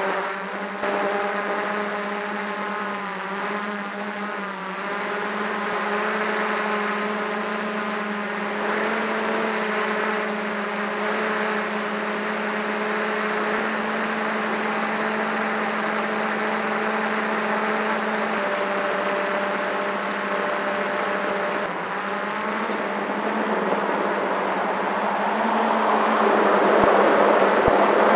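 Quadcopter drone's electric motors and propellers whirring steadily, heard from the drone's own camera, the pitch wavering as the motors change speed in the first few seconds. A louder rushing noise builds near the end.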